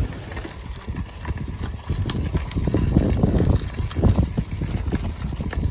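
Strong wind buffeting the microphone of a moving bicycle rider, heard as uneven low rumbling gusts.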